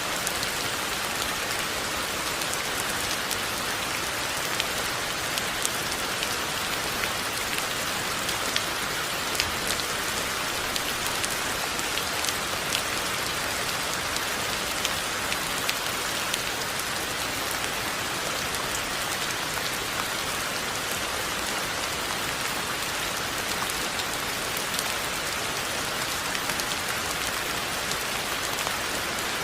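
Steady rain falling on surfaces, an even hiss with many distinct drop ticks scattered through it.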